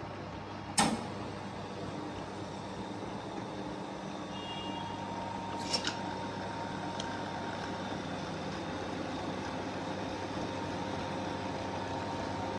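Bmerqile three-flavour countertop soft-serve ice cream machine running with a steady hum while soft serve is dispensed into a cone. A sharp click about a second in comes as the dispensing handle is worked, and a couple of smaller clicks follow near the middle.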